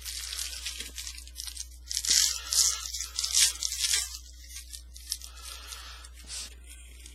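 A Topps Chrome football card pack's foil wrapper being torn open and crinkled, loudest through the first four seconds, then softer rustling as the cards are handled.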